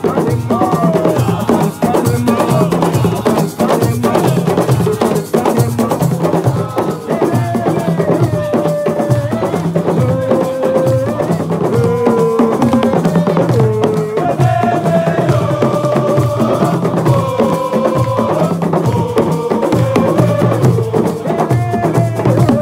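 Percussion ensemble drumming a fast, dense rhythm, with a wavering melody line held over the drums.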